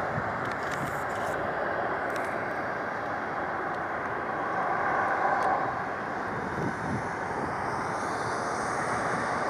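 Boeing 737-400's CFM56-3 jet engines running at taxi power, heard from a distance as a steady rushing roar that swells a little about five seconds in.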